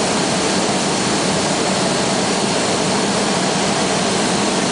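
Steady roar of a glassworks floor, from the glass furnace and the workshop's machinery, with a faint high whine running through it.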